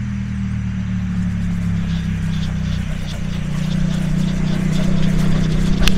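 A motor running steadily with a low hum that slowly grows louder, with scattered clicks from about two seconds in, the loudest near the end.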